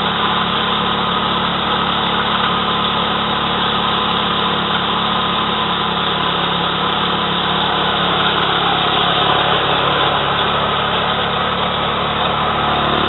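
Small engine of a power rice thresher running steadily, its pitch shifting slightly about halfway through.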